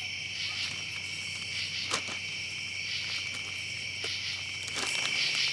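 A steady, high-pitched chorus of night insects trilling without a break, with a few brief clicks and crinkles from a plastic zip-top bag being opened and handled.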